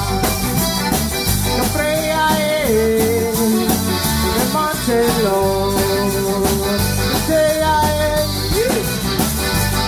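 Live zydeco band playing with a steady beat: accordion, washboard, electric bass, drum kit and electric guitar, with held, sliding melody notes over the rhythm.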